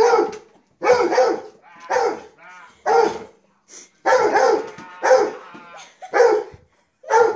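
A dog barking repeatedly, about one bark a second, each bark short and sharp with brief silences between.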